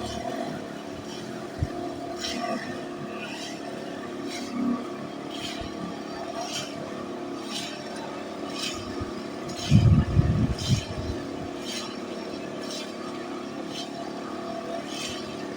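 Steady hum of a running vehicle engine, with a short, loud low rumble about ten seconds in.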